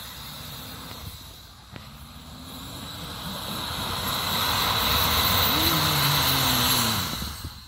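Toyota Land Cruiser 100's 4.2-litre diesel engine revving hard as its tyres spin in deep snow, with a loud hiss of snow and slush flung from the wheels. The sound builds over the first half, and the engine note rises and falls near the end before dropping off.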